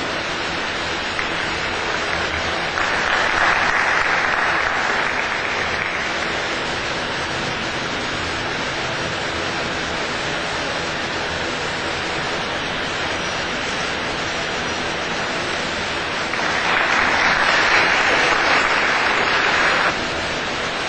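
Audience applauding in two rounds of about three seconds each, over a steady hiss of room noise; the second round cuts off suddenly.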